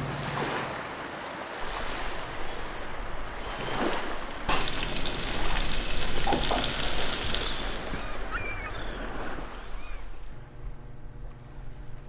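Sea waves washing and wind rushing over the microphone, a steady noisy rush of water and wind. A little after ten seconds it cuts abruptly to a quieter steady hum with a thin high whine.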